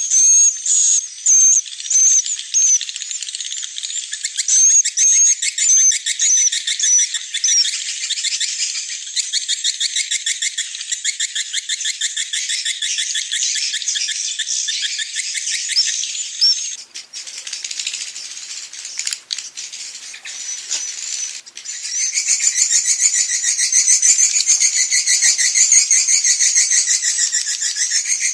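A dense chorus of swiftlets twittering, with rapid chirps and fast buzzy, clicking rattles. It is the dusk roosting ('inap senja') lure call that is played to draw swiftlets into a nesting house. The chorus thins briefly past the middle, then comes back fuller and louder for the last several seconds.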